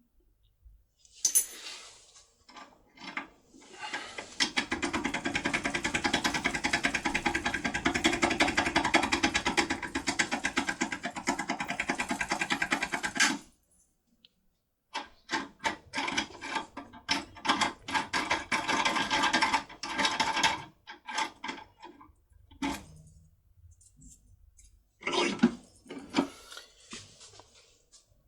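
Foil-wrapped key being rapidly jiggled in an MCM double-row lock cylinder to open it: a dense, fast metallic rattle for about ten seconds, then shorter spells of rattling and scattered clicks.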